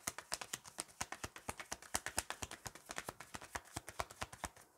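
Tarot deck being shuffled in the hands, the cards slapping against each other in a rapid, even run of light clicks, about ten a second.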